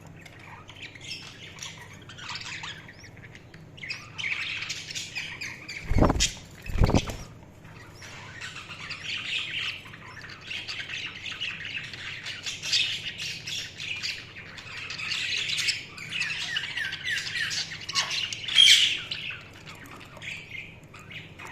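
Budgies chattering and warbling, with many overlapping chirps and squawks. Two loud thumps come about six and seven seconds in.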